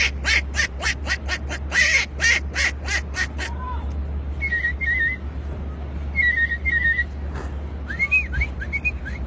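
A man imitating animal calls with his mouth: a quick run of sharp clicks, about three or four a second, then bird-like warbled chirps in pairs, and a few short swooping whistles near the end.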